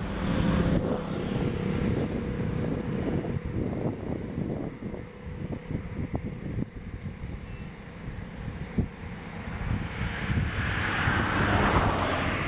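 Engine noise from passing motor traffic, fading over the first few seconds and building again toward the end, as of one vehicle going by and another approaching, with low wind rumble on the microphone.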